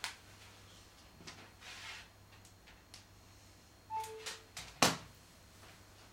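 A smartphone being handled, set on a plastic desk-lamp base and plugged into its USB charging port: light clicks and rustles, a short two-note electronic beep falling in pitch about four seconds in, then a sharp knock just before five seconds.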